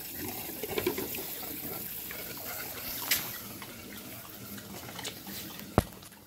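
Water churning and fizzing in a glass aquarium test tank as a pump drives water through a DIY venturi that draws air into it. A single sharp knock near the end.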